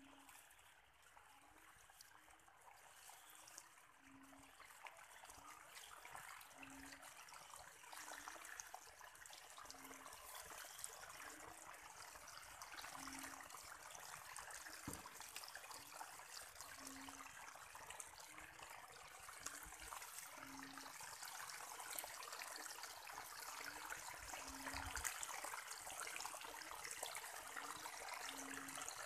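Muddy rainwater runoff trickling down a small grassy channel into a flooded field, faint at first and growing louder near the end. A short low note repeats every three to four seconds behind it.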